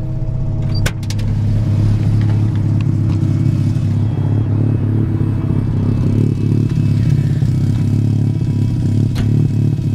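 1985 Mazda RX-7's rotary engine idling steadily through a homemade stainless exhaust with its add-on silencer fitted. It is heard first from inside the cabin, then louder from outside toward the tailpipe. A sharp click comes about a second in and another near the end.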